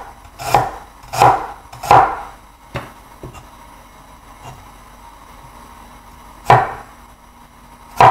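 Chinese cleaver slicing ginger on a wooden cutting board, each cut ending in a sharp knock of the blade on the board. There is a quick run of four cuts in the first two seconds, a fainter one just after, then a lone cut about six and a half seconds in and one more at the very end.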